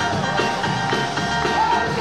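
A woman singing a gospel praise-and-worship song into a handheld microphone, over instrumental accompaniment with a steady beat.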